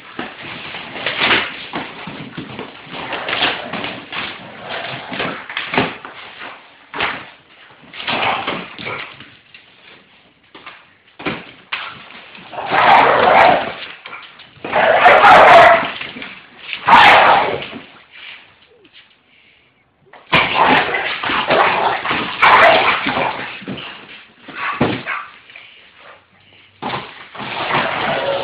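Pit bull attacking a cardboard box: the dog's vocal noises mixed with the box banging and scraping on a hard floor, in irregular loud bursts. The loudest bursts come in the middle, followed by a brief lull.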